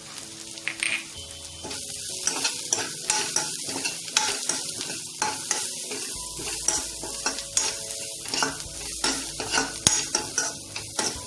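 Sliced onions frying and sizzling in oil in a kadhai, while a steel slotted spoon stirs them and scrapes against the pan, giving frequent irregular clinks and scrapes.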